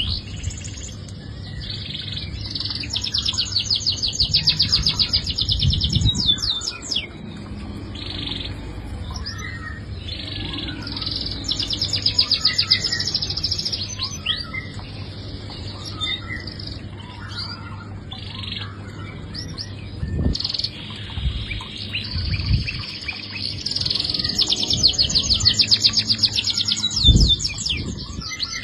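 Domestic canary singing long, fast rolling trills in repeated phrases with short breaks between them. A few low thumps sound here and there.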